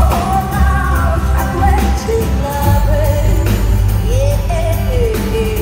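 Live pop-rock song played through a concert PA: a singer holding long, gliding sung phrases over a ukulele and a band with a heavy, steady bass.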